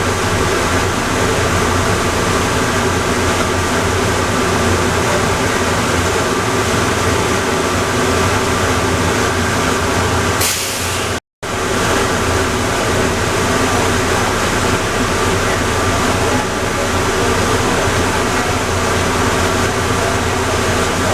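Steady running noise of the Atlanta airport Plane Train people mover: an even rush with several held tones and no change in speed. The sound cuts out for a split second about eleven seconds in, just after a brief hiss.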